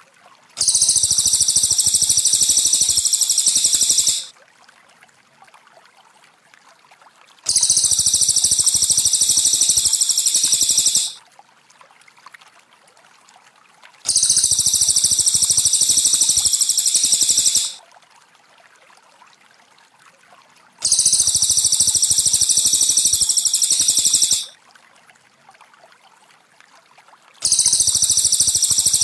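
Looped recording of a cililin's song for training caged birds: a high, dense trill lasting about three and a half seconds, repeated five times at even intervals of roughly seven seconds. Between phrases there is a faint trickle of water.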